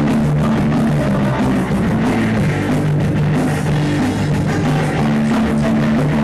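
Punk rock band playing loud: distorted electric guitars holding chords over a drum kit.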